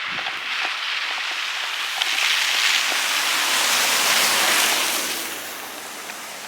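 A vehicle passing on a slushy, snow-covered road: a rushing tyre hiss through wet snow that swells, holds for a few seconds, then fades away, with faint crunching footsteps in snow underneath.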